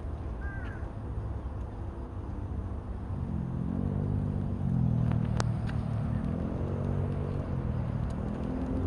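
A crow caws once near the start over a steady low rumble. From about three seconds in, a louder, deeper droning of a passing engine, most likely a road vehicle, rises and takes over, coming and going in long swells.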